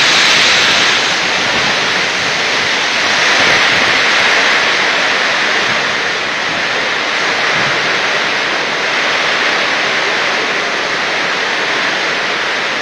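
Strong wind blowing hard, a loud steady rushing that swells and eases in slow gusts every few seconds.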